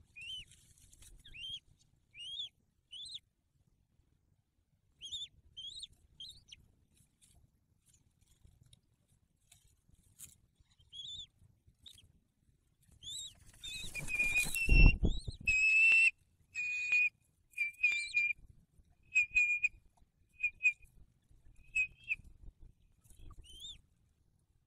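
Bald eagles calling in high, thin, whistle-like chirps, spaced out at first. About halfway through there is a rush of noise and a heavy thump as the second adult lands on the nest. A quick run of piping calls follows, then scattered chirps.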